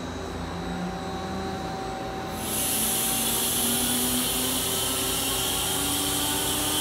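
Mazak CNC turning center powered up and humming steadily. About two and a half seconds in, a loud, steady hiss of compressed air from the machine's air blast starts suddenly and keeps on.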